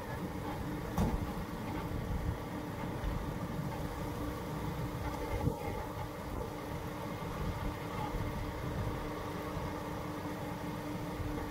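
Fire engine's diesel engine idling with a steady low rumble and hum, with a couple of brief knocks.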